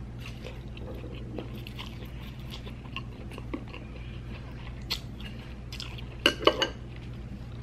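A person eating Chinese take-out noodles with chopsticks: noodles drawn into the mouth and chewed, with scattered wet smacks and clicks and a quick cluster of louder smacks about six seconds in.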